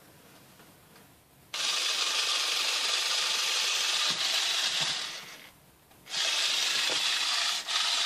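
Small electric Lego Technic motor driving a plastic four-wheel-drive gearbox, a steady high whirr of motor and gears. It switches on about a second and a half in, winds down around five seconds, and starts again a second later.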